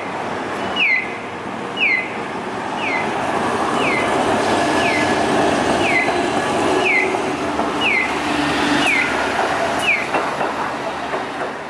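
Kagoshima City tram car running past on street track: a rumble that builds to its loudest mid-way and fades near the end, with a faint motor hum. Over it a pedestrian crossing's audible signal chirps about once a second, each chirp a short falling tone.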